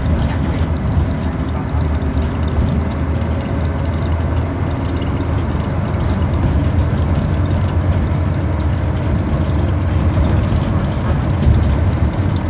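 Interior sound of a Scania-chassised Enviro 400 double-decker bus on the move: a steady, low diesel engine drone with road noise.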